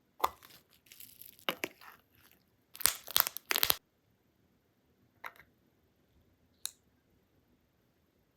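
Textured slime being squeezed and pulled apart by hand, giving crunchy tearing crackles in three bursts over the first four seconds, then two single short pops.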